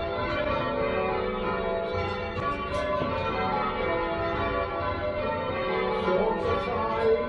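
Church tower bells being change-rung: a steady stream of bells striking one after another in turn, their tones overlapping.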